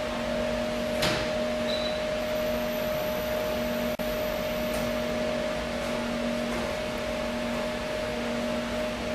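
Steady machine hum with two held tones over an even hiss, and a single sharp click about a second in.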